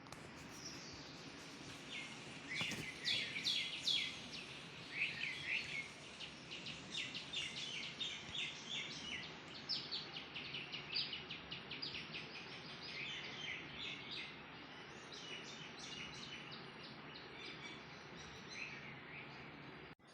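Birds chirping and twittering in quick, repeated high notes over a steady outdoor hiss. The calls are loudest and densest in the first few seconds and thin out towards the end.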